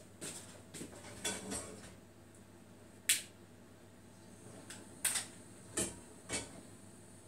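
A frying pan being set on and moved about the metal grate of a gas hob, giving scattered sharp clinks and knocks, about eight in all, the loudest about three and five seconds in.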